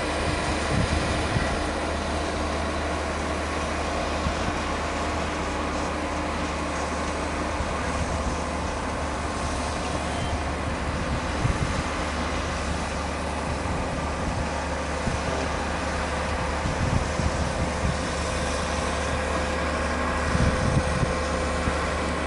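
Heavy construction machinery running: a steady low engine drone with a few brief louder clanks and bumps, around the start, in the middle and near the end.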